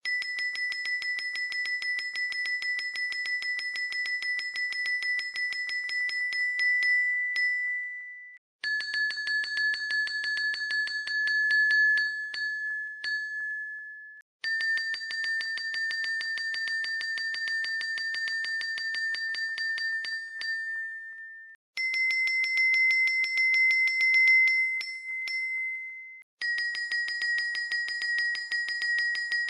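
Arcade punching machine's score counter ticking up rapidly with a steady bell-like electronic tone. It runs five times in a row, each run cutting off after several seconds and the next starting at a slightly different pitch.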